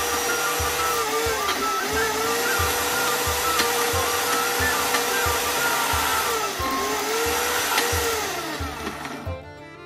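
Electric mixer grinder running in a steel jar, grinding a thick paste of sautéed onion, tomato, garlic and tamarind; the motor's whine dips in pitch several times under the load. It is switched off near the end and winds down.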